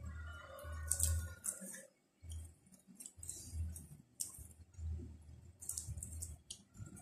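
Close-up eating sounds: crisp, crackly rustling of fresh herb leaves being picked off their stems by hand, with chewing of raw vegetables, in short irregular bursts.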